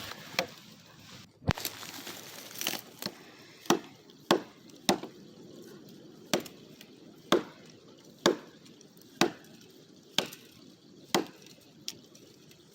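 Repeated blows of a hammer striking the trunk of an old tree, about a dozen sharp knocks at roughly one a second.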